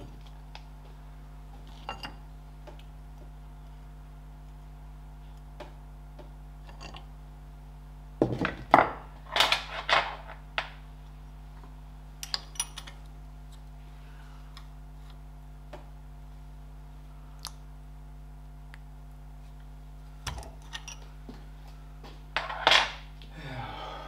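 Metal-on-metal clanks and clicks of hand tools on the steel hub and wheel stud as the stud is drawn into a Ferguson TED20 front hub flange. A few scattered clinks, a loud cluster of clanks from about eight to eleven seconds in, and more near the end, over a steady low hum.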